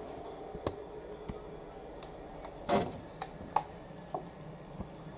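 A few light clicks and one brief, louder rustle about two and a half seconds in: small handling noises over a low steady hum.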